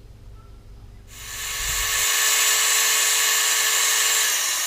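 Small high-speed rotary tool running steadily with a high-pitched whine and hiss, starting about a second in, cleaning up old brake hose clips.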